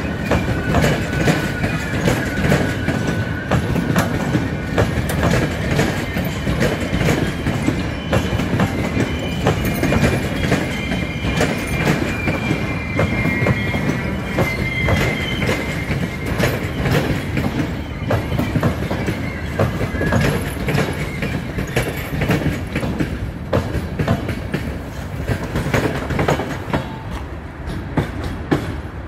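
CFR passenger coaches rolling past close by, wheels rumbling and clacking over rail joints, with high wheel squeal coming and going in the first half. The sound thins near the end as the last coach moves away.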